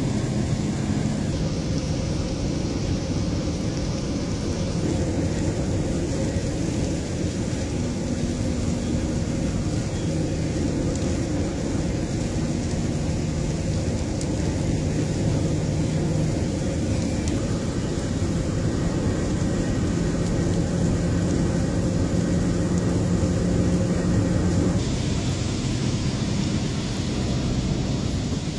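Steady road noise inside a moving car on a wet highway: a low rumble of engine and tyres on wet road, with a faint hum that shifts in pitch now and then. The hiss turns brighter about three-quarters of the way through.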